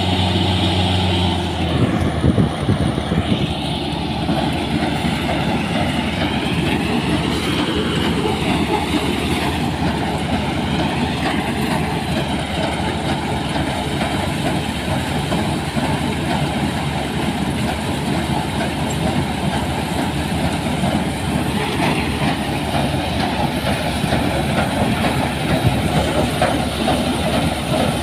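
New Holland TC56 combine harvester's diesel engine running with a steady hum. About two seconds in, a dense, continuous rattle of the header reel and threshing mechanism takes over as it works a pile of sunflower heads.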